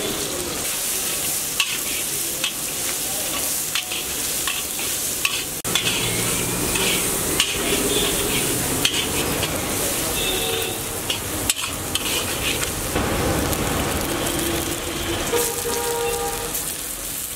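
Chopped onions sizzling in hot oil in a large metal wok, stirred with a metal spatula that clinks and scrapes against the pan every second or two.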